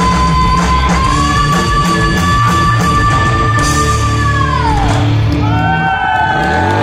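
Live rock band with electric guitars, drums and a female singer playing the end of a song: a long held note over the band that bends down and breaks off about five seconds in, then tones gliding up and down near the end.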